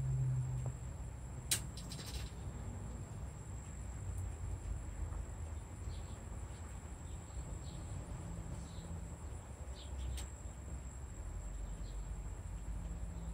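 Outdoor background: a steady high-pitched insect trill with a few faint short bird chirps, over a low rumble. A couple of sharp clicks come about one and a half and two seconds in, and another near ten seconds.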